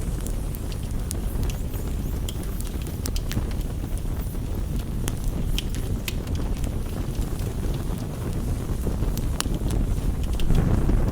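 Rain-and-campfire ambience: a steady low rush of rain with many scattered sharp crackles and ticks throughout, swelling slightly near the end.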